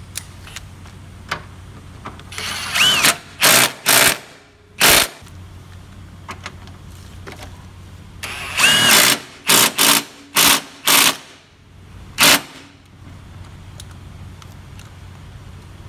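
Cordless power tool driving a socket to run down and tighten the new engine side mount's bolts. It comes in two sets, about two seconds in and again about eight seconds in: each starts with a longer spin whose motor whine bends in pitch, then short trigger pulses as the bolt seats. A steady low hum runs underneath.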